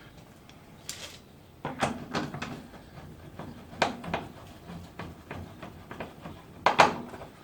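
Irregular knocks and clatters of barbecue parts, screws and hand tools being handled during assembly, a few short clusters with the loudest near the end.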